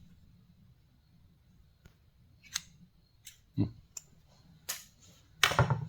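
Old metal hand tools being picked up and set down, knocking together: a string of sharp clicks and clinks that comes quicker and louder near the end.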